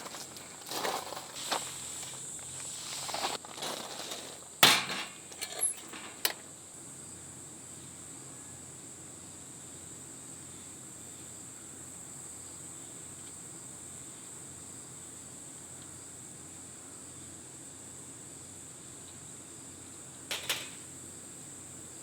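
Crickets chirring in a steady high drone over quiet outdoor ambience, with a cluster of sharp clicks and knocks in the first six seconds and two more knocks about twenty seconds in.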